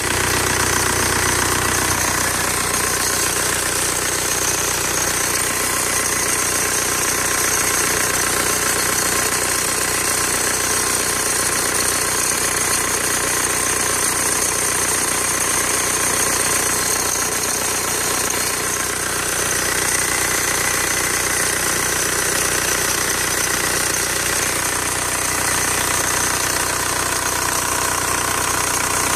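Volkswagen 1.9 TDI (ALH) four-cylinder diesel engine running steadily with a rattle from the serpentine belt drive, which the owner traces to the belt tensioner.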